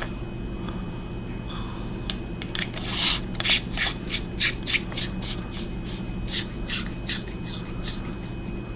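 Threaded tail cap of a 26650 flashlight being screwed on after the battery is loaded: a run of short rasping scrapes, several a second, starting about two seconds in and dying away near the end.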